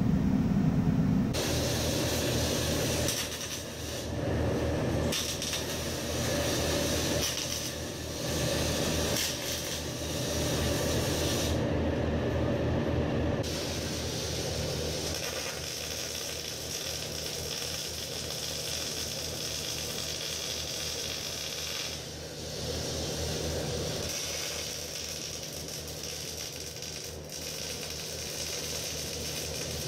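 MIG welder arc crackling and hissing as steel truss plates are tack-welded, in runs of a few seconds with short breaks between them.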